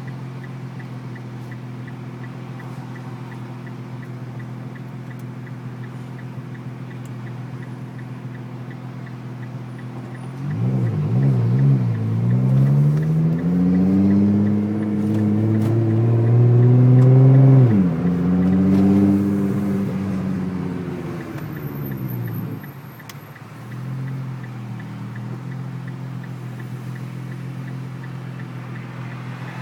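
Car engine idling steadily, then a car accelerating hard from about a third of the way in: the engine note climbs, drops sharply at a gear change, climbs again and fades back to the idle.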